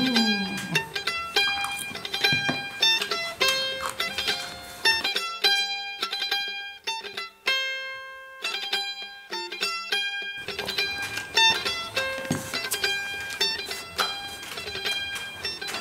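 Background music led by a plucked string instrument playing a quick run of short notes, thinning out to fewer notes midway before filling out again.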